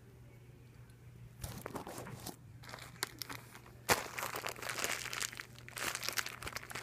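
Thin plastic bag crinkling as it is handled, in irregular crackly bunches that start about a second and a half in, with one sharp, loud crackle near four seconds.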